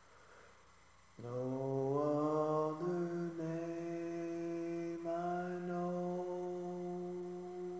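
A cappella voices singing in harmony with no instruments: after a second of hush the voices come in together, slide up into a chord and hold it in long sustained notes, moving to a new chord about five seconds in.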